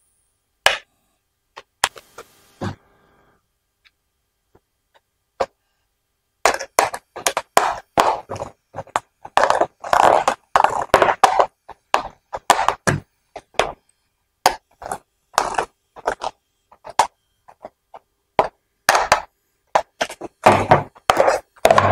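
Hard plastic parts of a children's ride-on toy knocking and clicking together as a plastic mudguard is fitted to its frame and fastened with a small screw. A few scattered knocks at first, then from about six seconds in a dense run of sharp knocks and clicks.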